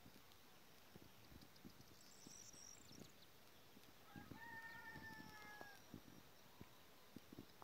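A rooster crows once, faint, one long call of about a second and a half starting about four seconds in. Earlier, a small bird chirps briefly, and soft low knocks are scattered throughout.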